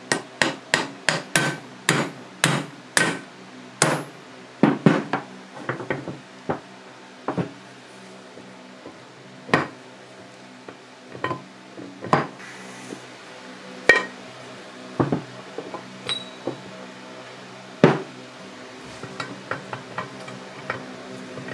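Hammer knocking on steel milling-head parts: a quick run of about a dozen sharp metal strikes in the first four seconds, then scattered single knocks and a few light clicks near the end.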